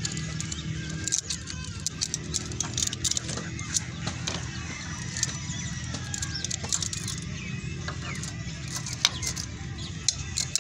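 Irregular light metallic clicks and clinks as a screwdriver and the motorcycle's oily timing chain knock against the cam-chain sprockets inside the open engine case, over a steady low hum.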